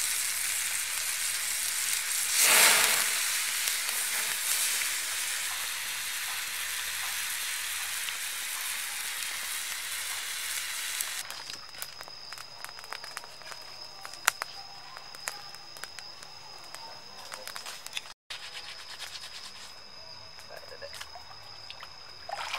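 Meat and vegetables sizzling on a hot stone slab over an open fire, a steady hiss that surges louder for a moment about two and a half seconds in. About halfway through it gives way to a small twig fire crackling with sharp pops, under a steady thin high-pitched tone.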